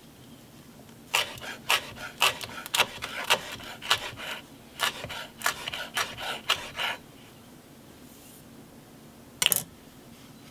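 A quick series of short rasping, scraping strokes, about a dozen over six seconds, then one more scrape near the end.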